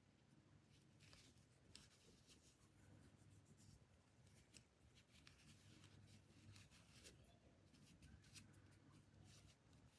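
Near silence: faint scratching and rustling of macrame cord being worked with a crochet hook, small scattered clicks and rubs, over a faint low hum.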